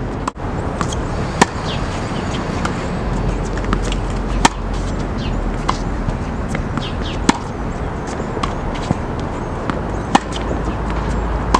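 Tennis balls struck by rackets in a baseline rally: a sharp pop about every three seconds from the near player's shots, with fainter hits and bounces from the far end between them. Steady outdoor noise runs under the shots, with a low wind rumble on the microphone from about three seconds in.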